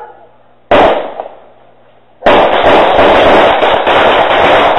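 Loud, heavily distorted blasts from a car horn made to sound like gunfire: one sharp bang about a second in that dies away, then, after a short gap, a long burst of rapid cracking lasting nearly three seconds that cuts off abruptly.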